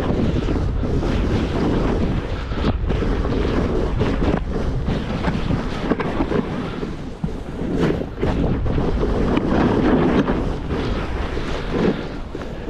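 Wind buffeting the microphone: a steady, loud rumble with irregular gusts.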